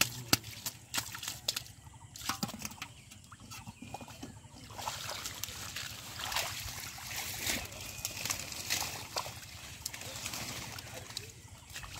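Shallow muddy water splashing sharply as a large fish thrashes in the hand, followed from about five seconds in by steady sloshing and crackling rustle as hands dig through water hyacinth and mud.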